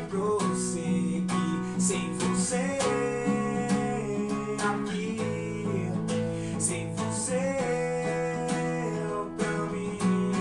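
Acoustic guitar strummed in a steady rhythm, with a man singing over it in a song.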